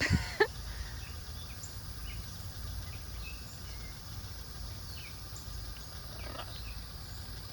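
Pet parrots calling: a loud squawk with steeply falling pitch right at the start, scattered short soft chirps, and another call about six seconds in, over a steady low background noise.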